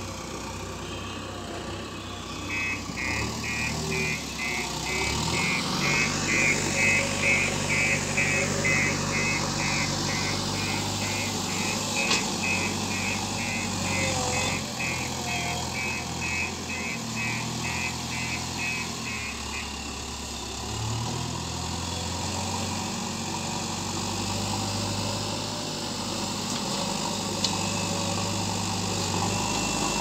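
JCB backhoe loader's diesel engine running, its pitch stepping up and down as it works. For about the first two-thirds, a high-pitched beeper sounds about twice a second.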